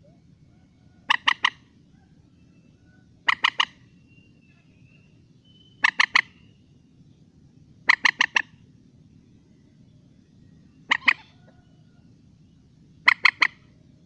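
Common moorhen calling: six short bursts of three or four quick, pitched notes in rapid succession, spaced about two to three seconds apart.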